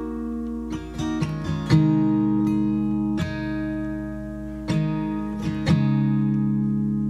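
Background music: an acoustic guitar picking and strumming chords, each chord left to ring for a second or more, with a quick run of plucked notes about a second in.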